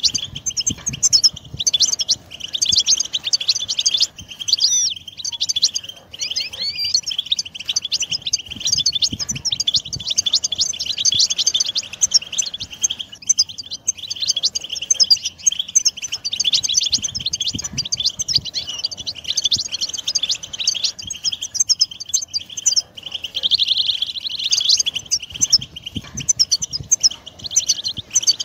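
European goldfinch song: a continuous, fast twittering chatter of rapid high notes, dense and without a pause.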